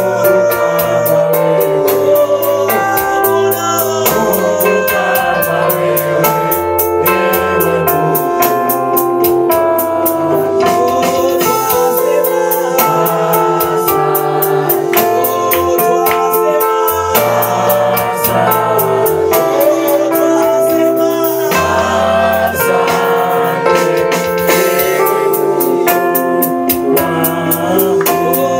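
Live gospel praise music: a woman sings into a microphone over an electronic keyboard with a bass line and a steady beat.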